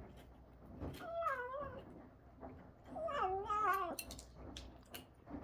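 Domestic cat making two short, wavering murmuring calls over its food, one about a second in and a longer one about three seconds in: the mumbling a cat does while eating.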